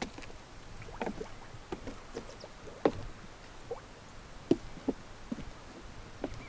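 Irregular wooden knocks and short creaks, about one every half second, from steps on a small wooden deck.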